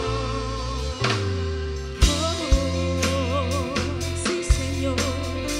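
Live worship band playing: a singer holds wavering notes over a steady bass line and kick-drum beats.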